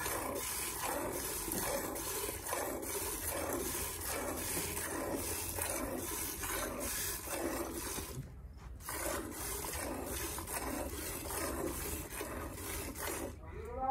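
Hand milking of a cow: squirts of milk from the teats hiss into a steel bucket in a steady, regular rhythm, with a brief pause about eight seconds in.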